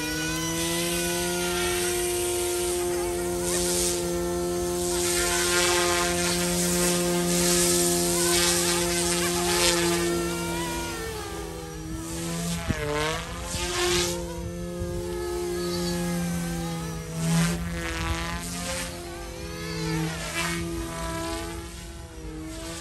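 YXZNRC F280 flybarless RC helicopter's dual brushless direct-drive motors and rotors whining at a steady pitch at head speed. From about halfway through, the pitch wavers up and down again and again as the helicopter flies about high overhead.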